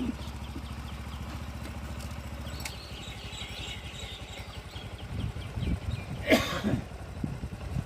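A small engine running with an even low beat, which stops about three seconds in. Later comes a short, loud sound.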